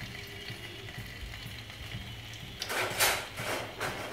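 Ginger-garlic paste frying in hot oil in a wok: a faint steady sizzle, then several short, louder hissing spurts in the last second and a half.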